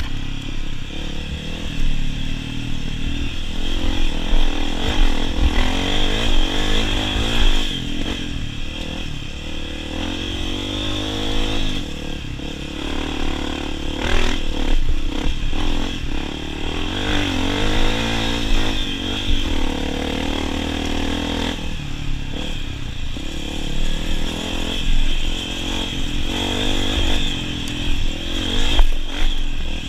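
Honda CRF250F dirt bike's single-cylinder four-stroke engine under way on a trail, its pitch climbing and dropping back again and again as the throttle is worked, with an occasional knock.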